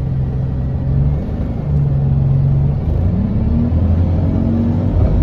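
Alexander Dennis Enviro200 bus engine running, a low drone whose pitch shifts in steps, with a tone rising about three seconds in; this is the noise the owner calls strange.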